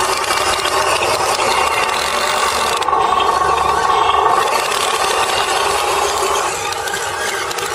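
Small electric motor and gears of a radio-controlled model truck running steadily, with a rasping, grinding edge and no low rumble.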